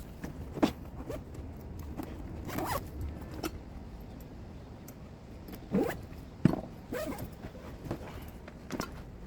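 A run of short rasping zip sounds, about eight strokes at uneven intervals, the loudest two about six seconds in.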